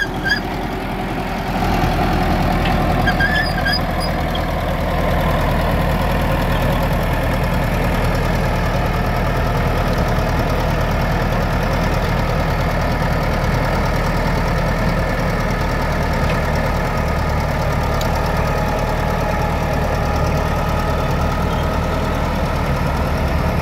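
D50A-15 crawler bulldozer's diesel engine running steadily as the dozer pushes earth with its blade, getting a little louder about a second and a half in.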